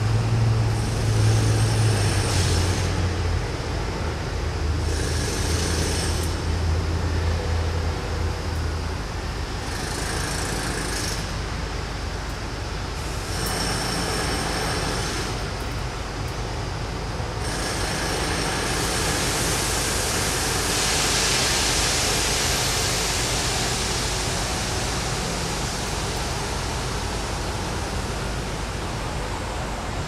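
Jackhammers breaking concrete, starting and stopping in bursts of a few seconds, with a longer run in the second half. A low hum sounds under them for the first several seconds, and city traffic rumbles throughout.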